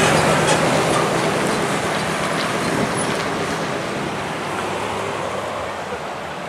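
A motor vehicle's engine running, fading steadily as the vehicle moves away.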